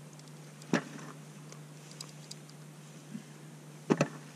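Sharp clicks and knocks from handling a short ice-fishing rod and a small bass just pulled from the hole: one about a second in and a quick pair near the end, over a low steady hum.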